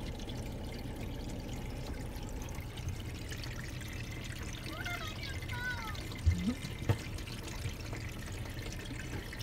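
Water pouring and trickling over a car's windows as they are scrubbed with a sponge, heard from inside the car. Two short knocks about six and seven seconds in.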